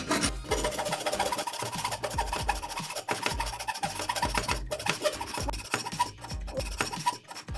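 Japanese-style pull saw cutting through a thin beading-wood stick held in a clamp: a quick, continuous series of short sawing strokes.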